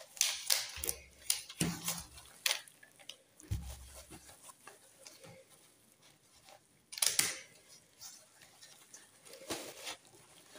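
Rustling and handling noises of a potted plant's packaging being unwrapped, with scattered clicks, a few soft knocks, and a louder rustle about seven seconds in.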